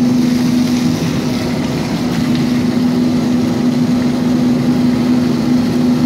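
A steady machine hum with a constant low tone runs throughout, and it is the loudest thing heard. Over it, water from a hose hisses and splashes onto a corrugated rubber washing-machine hose.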